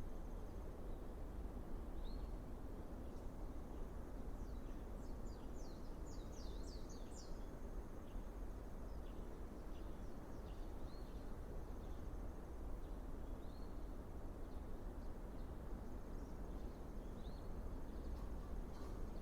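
Small high bird chirps, each a short upward-curving note, repeating every few seconds, with a brief flurry of rapid higher notes about five seconds in. Under them is a steady low outdoor background rumble and a faint, steady high insect tone.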